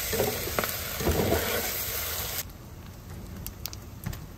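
Eggs and ham sizzling in a frying pan, a steady frying hiss that cuts off suddenly about two and a half seconds in, leaving a few faint clicks.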